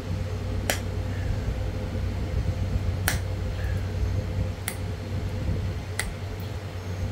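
Four sharp snaps spread over several seconds as pressure flakes pop off the edge of a Florida coral arrowhead under a fine-pointed copper flaker. Behind them runs a steady low drone of hay equipment.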